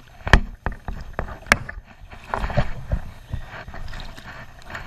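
A small hooked fish splashing and flapping at the water's surface as it is handled and unhooked, with sharp knocks and slaps, the loudest about a third of a second and a second and a half in.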